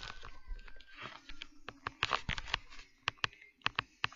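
Handling noise from a phone camera held down by the carpet: rustling, then a run of sharp, irregular clicks and taps.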